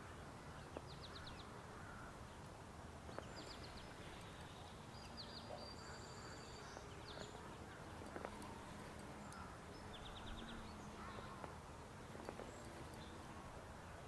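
Faint outdoor ambience: a steady hiss of wind, with small birds calling several times in quick runs of short high notes.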